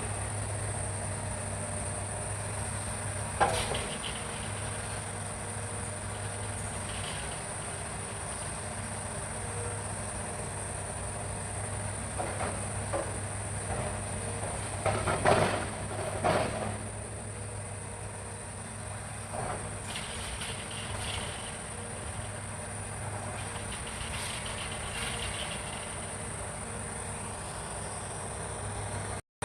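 Hitachi excavator's diesel engine running steadily under a constant high drone of forest insects, with several sudden knocks and clanks, the loudest a cluster about halfway through.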